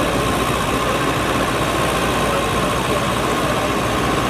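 Tractor diesel engines running steadily, with a steady high whine above the engine noise.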